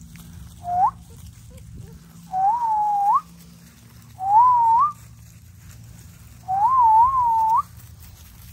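American bully puppy whining: four high, wavering whines, each ending with an upward lift. The first is short, and the second and fourth are the longest, about a second each.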